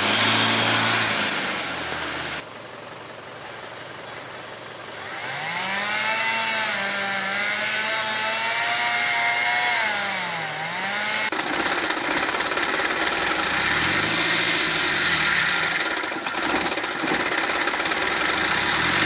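Off-road 4x4 engines heard across a few short cuts: an engine running, then after a quieter stretch one revving up and down for about six seconds, then an engine running with its pitch wavering.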